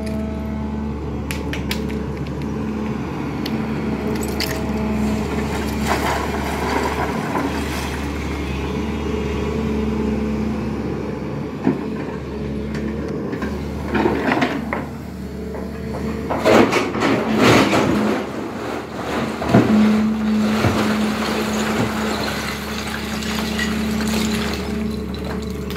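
SANY hydraulic excavator's diesel engine and hydraulics running steadily with a constant hum and whine while it works. Partway through comes a run of loud rock clatters and knocks as the steel bucket handles broken stone.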